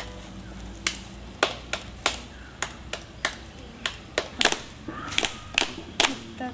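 Sharp hand claps beating out a thala rhythm, one or two a second in an uneven pattern. A faint voice comes in near the end.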